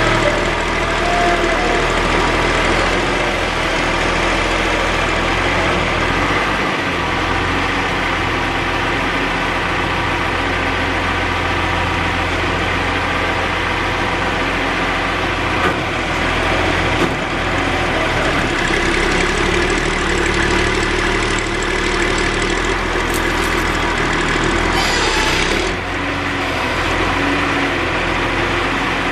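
John Deere backhoe's diesel engine running steadily, with a short hiss near the end.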